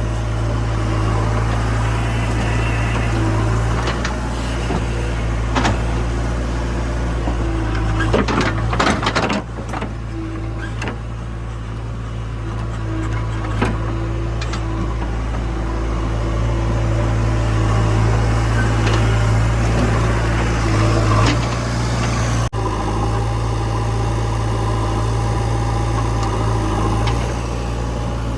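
Diesel engines of a JCB 3DX backhoe loader and a tractor running steadily, with a cluster of knocks and clatter about eight to nine seconds in.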